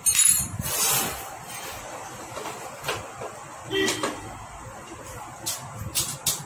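Hand tools clinking and scraping on a Honda Activa scooter engine: a loud scraping rush in the first second, then a few sharp metallic knocks spread through the rest.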